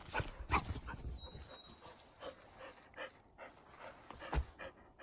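A dog running over dry pine needles and forest floor, its footfalls rustling, then panting after the run. One sharp knock near the end.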